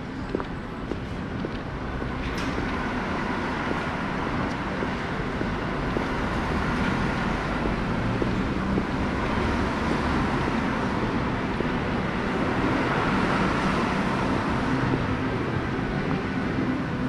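Steady rumble of motor traffic, building over the first few seconds and then holding.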